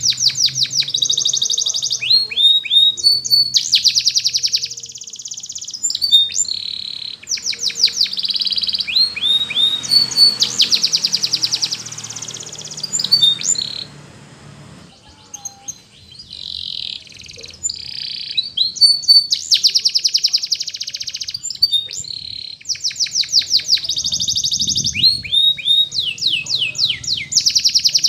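Domestic canary singing: long, high-pitched phrases of fast rolling trills and quick falling notes, with a short pause about halfway through.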